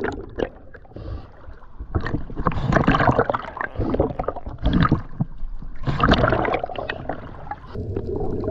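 Water sloshing and gurgling around an action camera held just below the surface, muffled by the water, with two louder rushing spells about three seconds apart.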